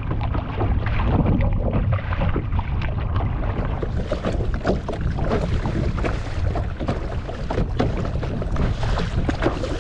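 Kayak paddling on choppy water: irregular splashes of paddle strokes and water slapping against the hull, over a steady low rumble of wind buffeting the microphone.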